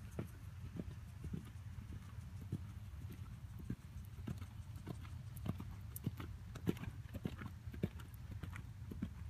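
Hoofbeats of a horse cantering on a dirt arena, a repeated thudding of hooves over a steady low rumble.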